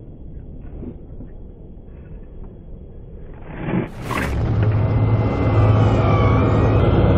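Low rumble, then about four seconds in a tank's main gun fires with a single sharp blast, followed by the tank's engine running loudly with a steady low hum.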